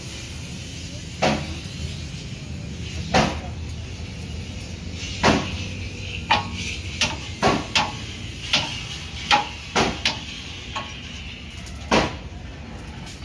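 Irregular metal clanks and knocks on steel: about a dozen sharp strikes at uneven intervals, typical of hammering and handling steel bar and chassis parts, over a faint steady hiss.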